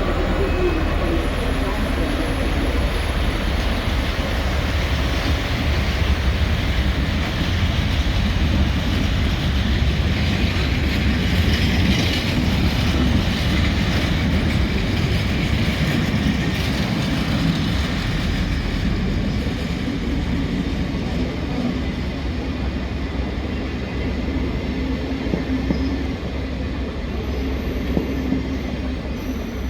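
A train running over the station tracks: a steady rumble of wheels on rail with some wheel squeal, easing slightly over the second half.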